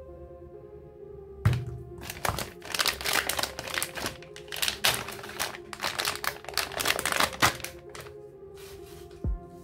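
Thin black plastic packaging bag crinkling and crackling as it is handled and opened, over steady background music. The crinkling starts with a sharp knock about a second and a half in and dies away near the end.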